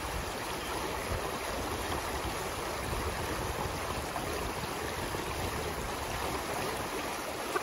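Shallow, rocky river rushing steadily, a constant even wash of flowing water.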